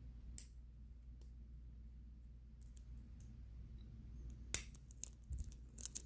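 Faint metallic clicks of a lock pick and tension wrench working the pin tumblers of a Blossom BC04 brass padlock. A few single ticks come first, then a quicker cluster of clicks in the last second and a half.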